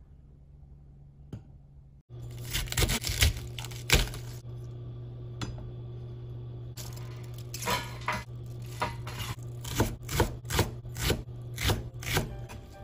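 Kitchen knife chopping cabbage and then slicing a leek on a plastic cutting board: a quick cluster of crisp chops about two seconds in, then a regular run of about two chops a second near the end, over a steady low hum.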